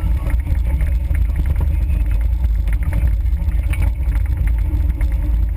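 Suzuki Samurai off-road vehicle's engine running steadily at low trail speed, a loud low rumble, with scattered light rattles and knocks from the vehicle over the rough dirt trail.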